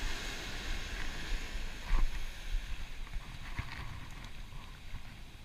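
Wind buffeting the microphone over the wash of ocean surf, with a couple of light knocks about two and three and a half seconds in.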